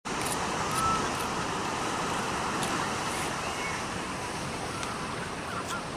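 Sea surf breaking and washing over rocks, a steady rushing noise, with a few faint short high chirps over it.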